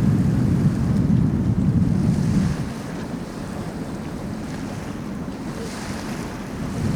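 Wind buffeting the microphone aboard a moving tour boat, a gusty low rumble over the wash of the boat on the river. The buffeting eases about two and a half seconds in and picks up again near the end.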